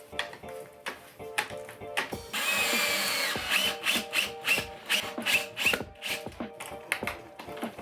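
Power drill running for about a second, followed by a string of short sharp clicks and knocks, over background music.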